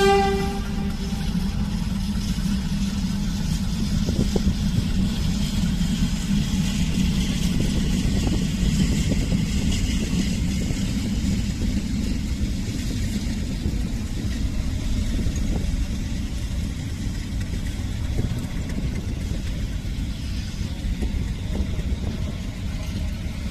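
Egyptian 'Marlboro' diesel shunting locomotive running steadily as it hauls a rake of passenger coaches past, with the low rumble of the coaches rolling over the rails. The tail of a horn blast fades out at the very start.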